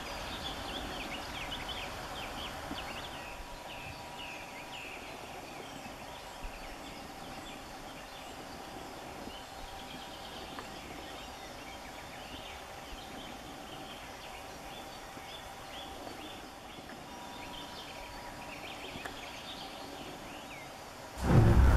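Outdoor meadow ambience with small birds singing in the background, busiest in the first few seconds, over a low rumble of wind. Loud music cuts in near the end.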